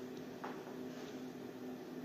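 Quiet room tone with a faint steady hum and one faint click about half a second in.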